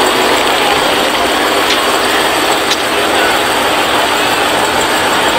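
Loud, steady engine noise from drag-racing cars at the strip.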